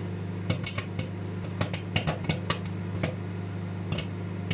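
Microwave oven humming steadily as popcorn kernels pop inside it: a dozen or so sharp, irregular pops, sometimes several close together.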